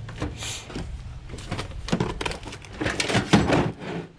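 Clattering and clinking of metal hand tools and sockets being handled, a run of irregular knocks that thickens from about a second and a half in, with a brief hiss about half a second in.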